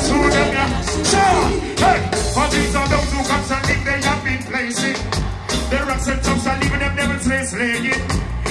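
Live reggae band playing loud through the stage PA, with drums, a heavy bass pulse and keyboards, and a man singing over it.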